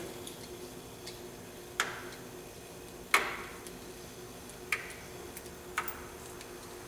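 Small metal parts of a new AN hose-end fitting clicking and clinking as the fitting is taken apart, about five separate sharp clicks with a short ring, spread over several seconds. A faint steady hum runs underneath.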